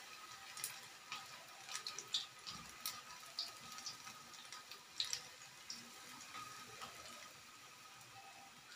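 Pakodas deep-frying in hot oil in a pan: a faint steady sizzle with scattered crackling pops that thin out near the end.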